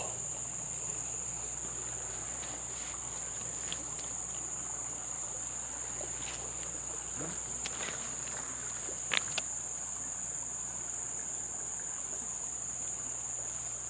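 Summer insects keep up a steady, high-pitched drone, with a few faint clicks here and there.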